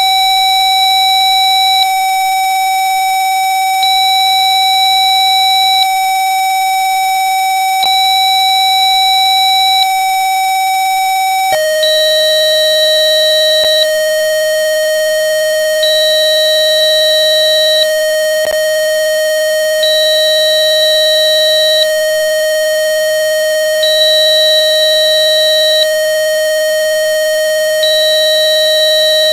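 A computer-generated therapy tone, steady and buzzy, at 760.9 Hz that drops to 619.9 Hz about a third of the way in. Over it, a high beep sounds for two seconds, then stops for two seconds, over and over.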